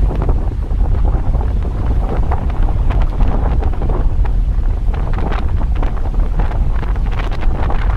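Strong wind buffeting the microphone: a heavy, continuous low rumble with irregular gusty flutters.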